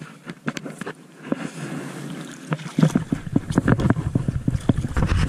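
Irregular knocks, clicks and rustles of handling on a fishing boat, with a heavy low rumble on the microphone starting about three seconds in.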